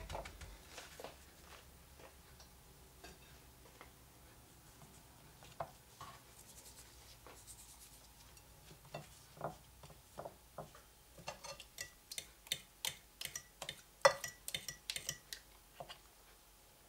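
Zucchini strips being breaded by hand: soft rubbing and light taps on a china plate of breadcrumbs, then in the last third a quick run of sharp clinks from a fork against a china bowl as a strip is turned in beaten egg.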